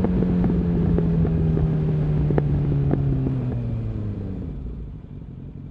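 Suzuki Bandit 650's carbureted inline-four running through a Mivv exhaust, its note falling steadily as the bike slows, with a few sharp pops along the way. The sound fades out near the end.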